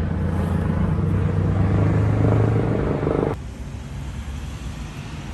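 Helicopter flying over: a steady low drone that grows louder, then cuts off abruptly a little over three seconds in, leaving a quieter low rumble.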